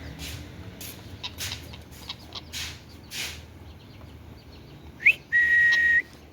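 Indian ringneck parrot whistling: a quick rising whistle about five seconds in, then one steady held whistle note lasting most of a second, after several short sharp noises in the first three seconds.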